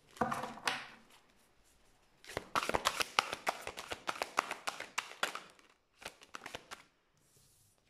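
Tarot deck shuffled by hand in an overhand shuffle: a short brush of cards, then a long run of quick card-edge clicks and flutters, and a few more near the end.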